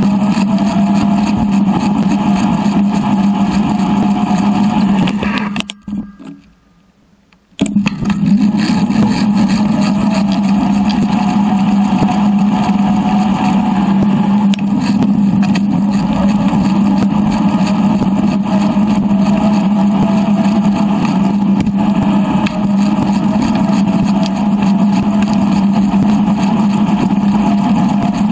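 Steady, motor-like drone of wind and tyre noise from a bicycle rolling along a paved path, on a track sped up three times. It cuts out for about two seconds around six seconds in, then comes back at the same level.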